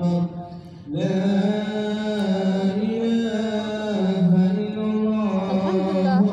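Background music: one voice singing long, held notes in a slow, chant-like melody, with a brief break for breath near the start and quicker wavering ornaments near the end.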